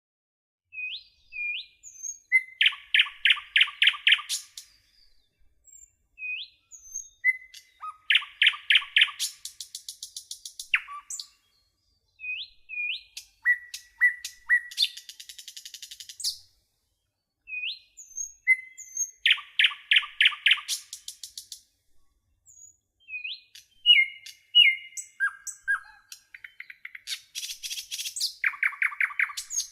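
A songbird singing in repeated phrases: a few short upward-flicking chirps, then a fast run of ringing notes, the phrase coming back every several seconds with clean silence between.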